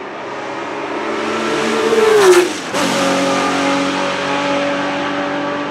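Porsche 917K race car's air-cooled flat-twelve engine, growing louder as the car approaches and dropping in pitch as it passes, about two seconds in. After a sudden break, a steady engine note runs on.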